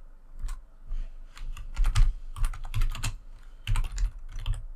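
Typing on a computer keyboard: a quick, irregular run of key clicks, some with a dull thud, as a name is typed in.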